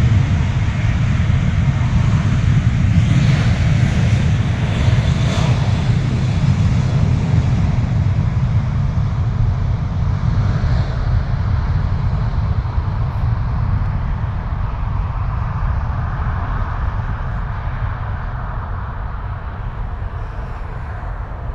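Boeing 737-700 CFM56-7B jet engines at takeoff power, heard from inside the passenger cabin as a loud, steady low rumble with airflow noise during the takeoff and climb, slowly getting quieter over the last several seconds.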